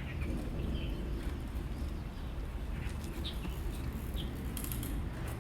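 A few short bird chirps over a steady low rumble, with a few sharp clicks near the end.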